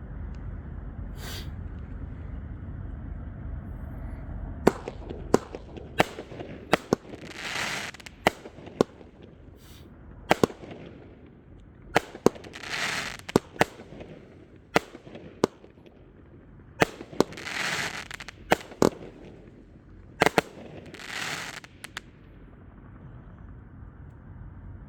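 Consumer fireworks going off: a string of sharp bangs, often one or two a second, with four longer hissing bursts about every five seconds. The bangs begin about five seconds in.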